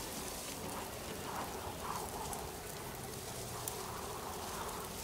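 Steady rain-like patter and hiss, with faint soft tones coming and going behind it.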